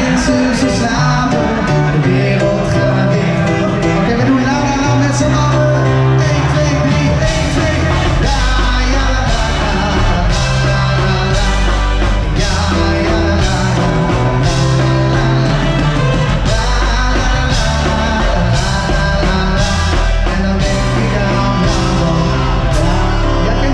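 Live band playing loud up-tempo rock party music with a singer, drum kit and electric guitar, on a steady beat.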